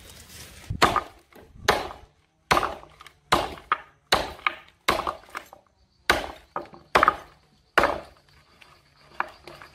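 Steady chopping blows on wood, about ten strikes a little under a second apart, each sharp with a short ring-off.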